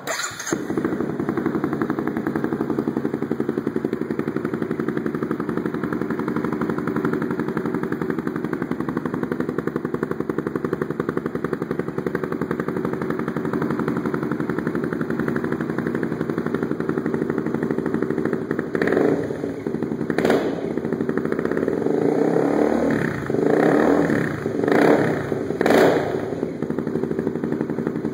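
Honda CBR250R single-cylinder engine breathing through a Leo Vince GP Corsa slip-on exhaust: it fires up, settles into a steady idle, then is revved in about six quick blips near the end.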